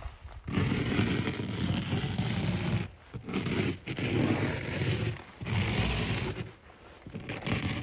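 A finger dragged through a thin layer of snow close to the microphone, scraping in several strokes with short pauses between them.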